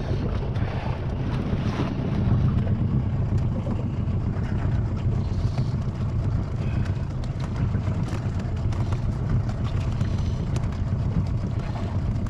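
Strong wind buffeting the microphone, a steady low rumble with a few faint clicks.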